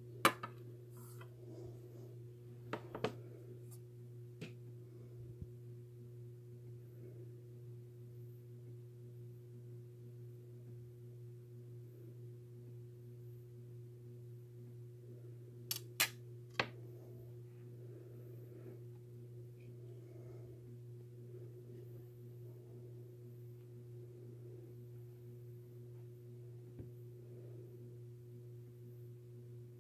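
Low steady hum with a few sharp clicks: one about a quarter second in, two around three seconds, a fainter one near four and a half seconds, and a tight group of three around sixteen seconds.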